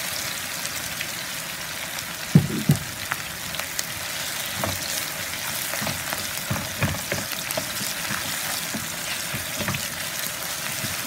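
Sliced onions sizzling in hot oil in a nonstick frying pan while a wooden spatula stirs them, scraping and knocking against the pan, with two louder knocks about two and a half seconds in.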